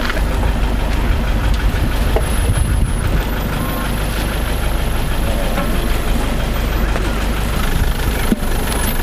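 Steady low rumble with a faint murmur of people's voices.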